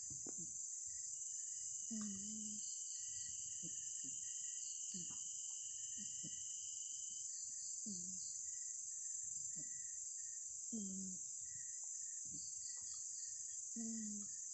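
A sleeping cat snoring: a short snore every second or two, with louder, toned ones every few seconds. A steady high chirring of insects runs behind it.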